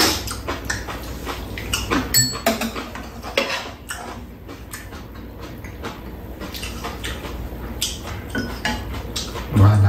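Metal spoons and chopsticks clinking and scraping against a frying pan and bowls while eating: a string of short clicks and scrapes that thins out in the middle and picks up again near the end.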